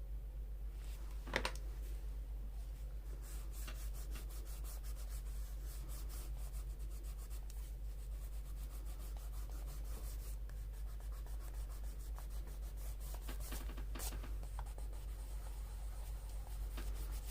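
Hands rubbing and handling paper on a journal page: a run of fine scratchy rubbing strokes, with one sharp click about a second and a half in, over a steady low hum.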